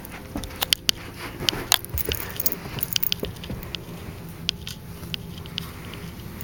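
A dog's collar and tags jangling in irregular light clicks as an English Mastiff moves about and is petted.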